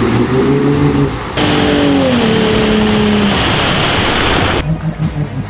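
Off-road Jeep's engine revving on a muddy track, its pitch rising. After an abrupt change the note drops and holds, with a rushing noise that cuts off sharply near the end.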